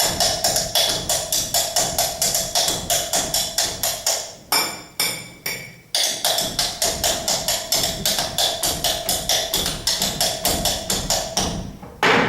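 Cutlery tapping on drinking glasses and a tabletop in a fast, even rhythm, about four or five strikes a second with a ringing tone. About four and a half seconds in the tapping breaks into a few separate strikes, then the fast rhythm resumes.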